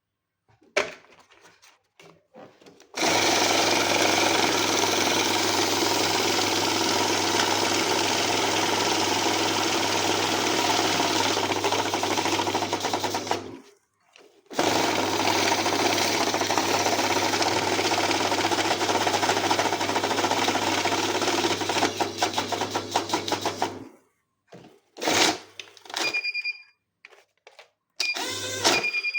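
Banknote counting machine running: a steady whirr with a low motor hum as notes feed through, in two long runs of about ten seconds each with a short pause between. Near the end come a few brief runs and short electronic beeps.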